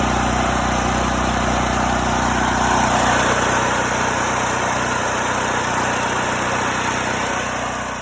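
Generac GP8000e portable generator's single-cylinder engine running steadily on its first run, just after starting, with the choke off.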